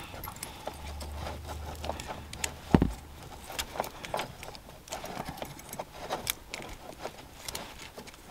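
Car-stereo wiring harness being handled: plastic plug connectors and wire ends click and rattle against each other in quick, irregular little taps, with one duller knock about three seconds in.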